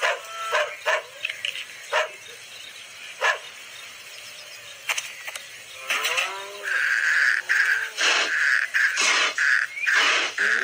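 Cartoon animal sound effects: a string of short, sharp yelp-like calls, several sliding down in pitch, then from about seven seconds a series of sustained high squeals with short breaks between them.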